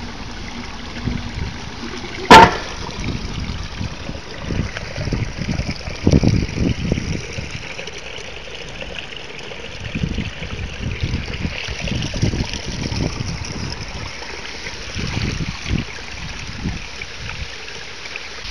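Runoff water trickling and running steadily over wet pavement and into a storm drain, with one sharp knock about two seconds in and irregular low thumps of footsteps in rubber boots.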